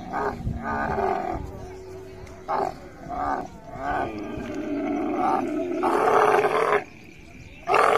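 Female dromedary camel, couched under a mounting bull, giving a series of loud, harsh calls in a row with short breaks; the longest comes about six seconds in, followed by a short pause and another call near the end.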